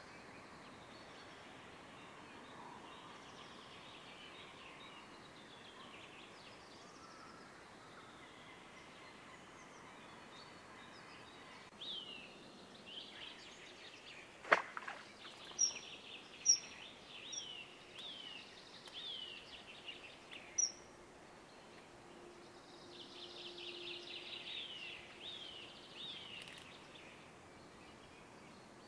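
A bird calling over a steady hiss: from about halfway, a run of short, high, falling calls, about one or two a second, with a few sharp clicks among them and a quicker run of calls near the end.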